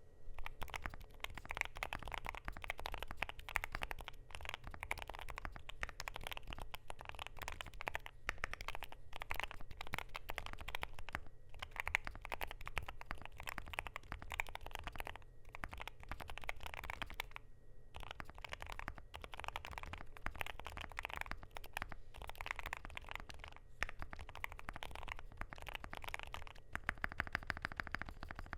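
Typing on a KBD8X MKIII mechanical keyboard with lubed Gateron Zero Degree switches and a polycarbonate plate: a steady stream of key clicks, broken by short pauses every few seconds. Near the end the keystrokes turn faster and more even.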